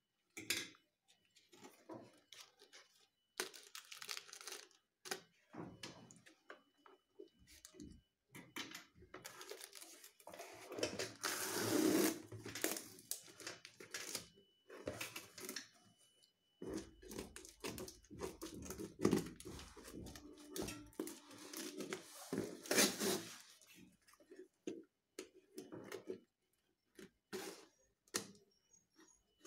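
Clear packing tape being peeled and ripped off a cardboard parcel and cut along with scissors, with the cardboard and plastic rustling: irregular tearing and crinkling in uneven bursts.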